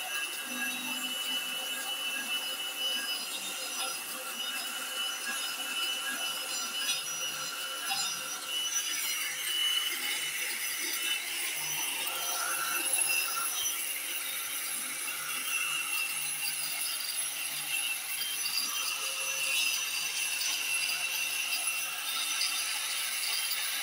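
A lure duplicating machine's motorised cutter running steadily with a high whine while it cuts a wooden lure blank with a rasping scrape.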